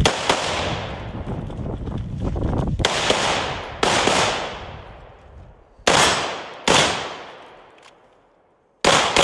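About six gunshots at uneven intervals, some of them from a pistol, each followed by a long echo that dies away among the trees.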